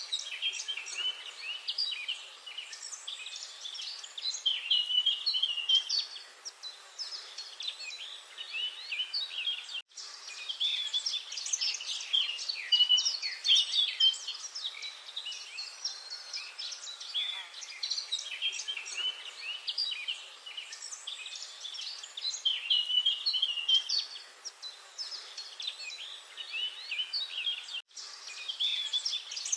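Many small birds chirping and twittering together in a dense, continuous chorus of quick, high, overlapping calls. The sound cuts out for an instant twice.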